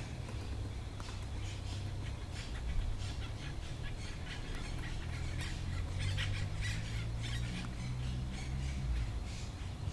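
A woodpecker making short, sharp high-pitched sounds at irregular intervals, coming thickest in the middle, over a steady low rumble.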